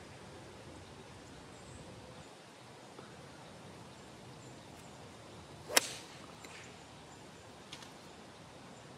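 Golf club swung through and striking the ball once, about six seconds in: a single sharp strike against faint outdoor background.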